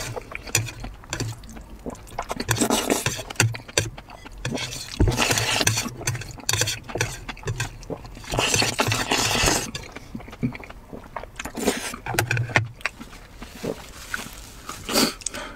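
A person loudly slurping noodles in three long slurps, with chewing between them.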